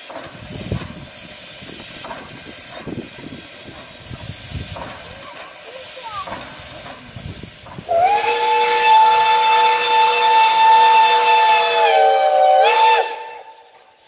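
Steam locomotive hissing steam, then sounding its whistle in one long blast of several notes together about eight seconds in. The blast holds steady for about five seconds, dips slightly in pitch near the end and then cuts off.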